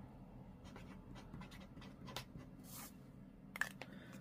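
Felt tip of a Posca paint marker scratching faintly across card as a word is written, with a short sharp click about three and a half seconds in as a marker is handled.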